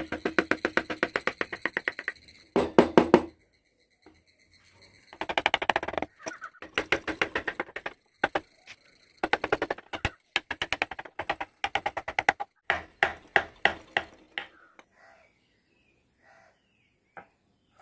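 Woodcarving chisel being driven into the wood with fast, light taps, in runs of a second or two with short pauses, tailing off into a few scattered faint taps near the end.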